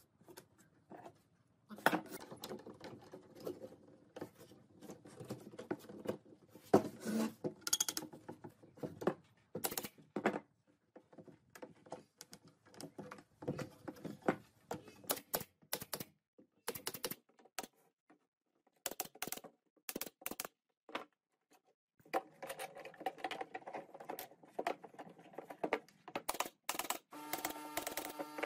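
Thin wooden strips knocked and clattered against a wooden frame while they are fitted and clamped: an irregular string of sharp clicks and knocks. A steady hum starts near the end.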